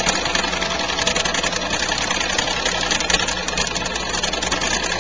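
Machinery of a fire-alarm diaphone system running steadily: a dense mechanical clatter over a low hum.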